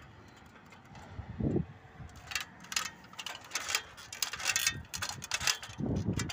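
Irregular clicking and light rattling with two dull thumps, one about a second and a half in and one near the end, from someone climbing a ladder.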